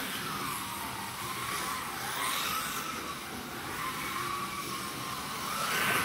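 Electric motors of slot cars whining on the track, their pitch rising and falling every second or two as the cars speed up and slow down.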